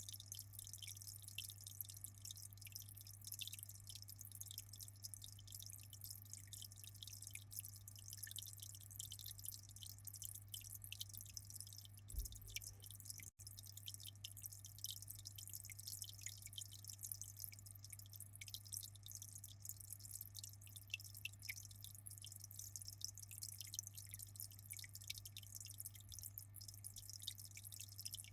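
Aquarium water trickling and splashing in a steady, faint stream of fine drips, over a constant low hum.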